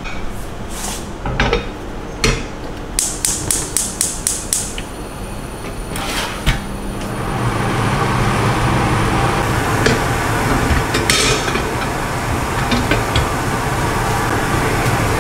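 A few light knocks, then a quick run of gas stove igniter clicks, about four a second. Roughly halfway through, the burner lights and runs with a steady rushing hiss and low rumble.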